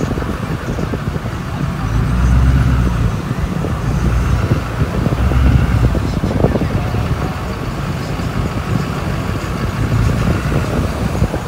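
Exhaust of a 2004 Duramax LLY 6.6-litre turbo-diesel V8 with a 5-inch exhaust, a steady low rumble as the truck drives slowly on sand, heard through the open driver's window. It swells twice in the first half.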